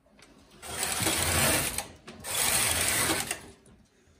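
Silver Reed SK840 knitting machine carriage pushed across the needle bed twice, a rattling mechanical run of about a second each time with a short pause between: two rows being knitted on all needles.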